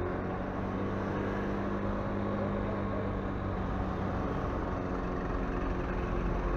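Motorcycle engine running steadily at low road speed.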